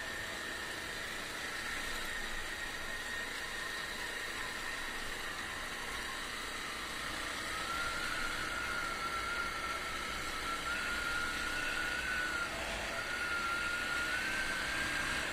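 Honda XR250 dirt bike's air-cooled single-cylinder four-stroke engine running under way on a dirt road, a thin whine whose pitch dips and climbs a few times over a steady rushing noise. It gets a little louder about halfway through.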